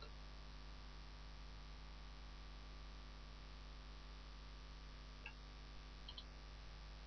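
Near silence: a steady mains hum and hiss from the recording chain, with a few faint clicks about five and six seconds in, from a computer mouse button.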